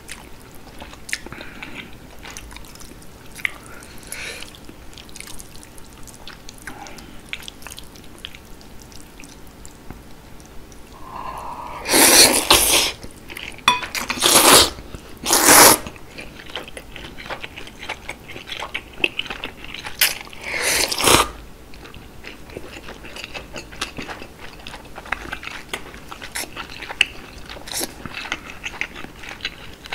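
Close-up eating sounds of chewy noodles in spicy broth: steady wet chewing with small mouth clicks. Several loud noodle slurps come in the middle: one at about twelve seconds, two quick ones a few seconds later, and a longer one about twenty seconds in.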